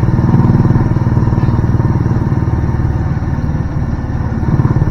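Small motorcycle engine of a motorized tricycle running steadily as it drives along, heard from inside the sidecar cab.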